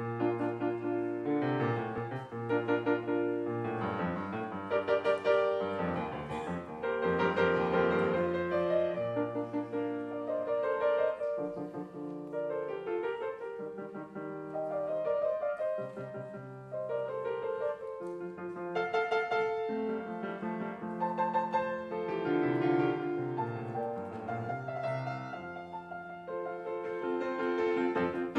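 Yamaha grand piano playing a piece of Baroque music, starting at once from silence.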